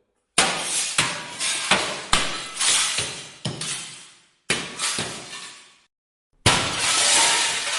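Mirror glass shattering in a series of sharp crashes in quick succession, each cracking and then trailing off in tinkling shards. After a brief pause near the end comes a longer, denser crash of breaking glass.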